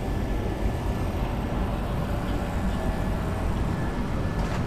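Street ambience: a steady low rumble of passing road traffic.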